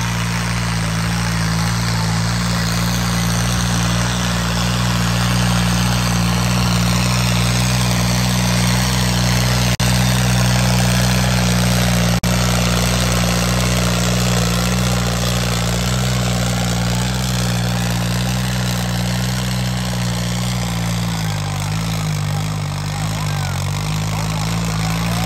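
A modified 60 hp John Deere tractor's diesel engine running hard and steady under heavy load while it drags a chained weighted sled. Its pitch wavers and dips slightly near the end.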